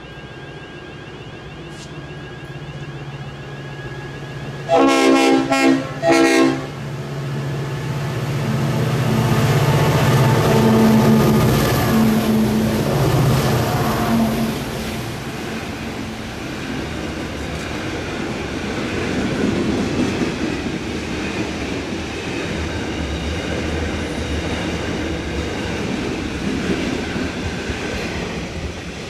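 G-class diesel locomotives sound their horn in three short blasts, then run past with their engines working hard. A long string of loaded container wagons follows, rolling by on the rails.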